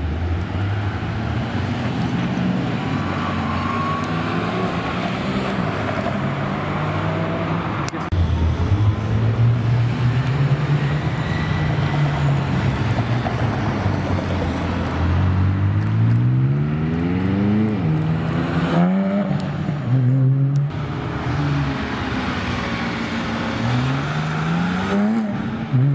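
Sports car engines driving past on a city street: a pair of Porsche 911s, then a McLaren 600LT Spider's twin-turbo V8, whose revs climb steeply with a drop at an upshift partway through. Near the end a Porsche 997 GT3 RS's flat-six revs up as it pulls away.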